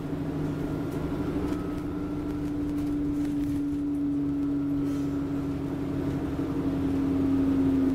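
An Enviro 400 Trident double-decker bus under way, heard from inside on the upper deck: its engine and drivetrain run with a steady, even-pitched drone that grows a little louder near the end.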